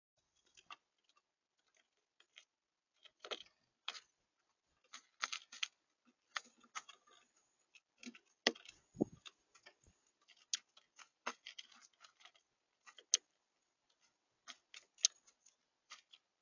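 Birds pecking at seed on a bird feeder: irregular sharp clicks and taps of beaks on seed and feeder, coming in quick clusters with short pauses, with one duller thump about halfway through.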